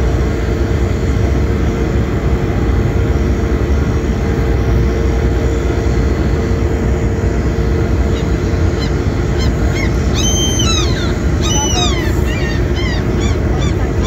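Steady drone of a ship's engine with a constant hum. From about eight and a half seconds in, birds call in a string of short rising-and-falling calls, loudest and thickest a couple of seconds later.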